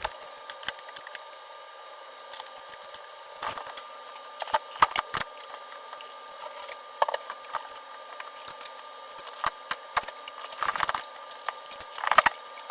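Irregular clicks and knocks from hand work on a metal TV wall mount and its screws, coming in a few clusters over a faint steady hum.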